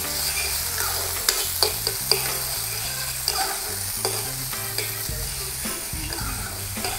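Corn kernels sizzling in hot oil in an aluminium pan, stirred with a metal spoon that clinks against the pan a few times.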